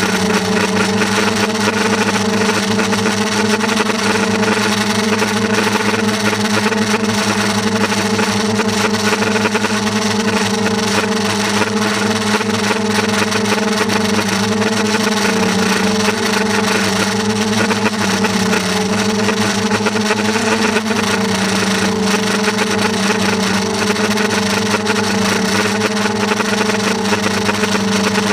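Steady, loud drone of a small motor running at a nearly constant pitch, dipping slightly about halfway through, with a hiss over it.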